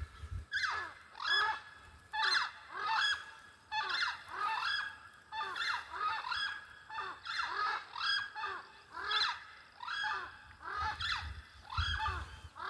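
Birds calling over and over, about two loud calls a second, the calls sometimes overlapping as if from more than one bird.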